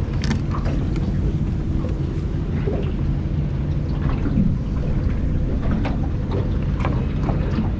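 Boat motor running with a steady low hum, with wind buffeting the microphone.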